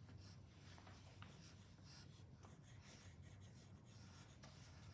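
Faint scratching of a pencil sketching lines on paper, over a low steady hum.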